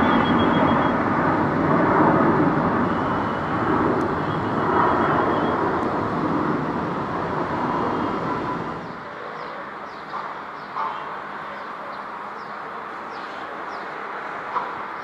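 Airbus A330 twin-engine jet airliner climbing out after takeoff, its engine roar slowly fading. About nine seconds in, the roar cuts off and quieter outdoor background remains, with a few faint knocks.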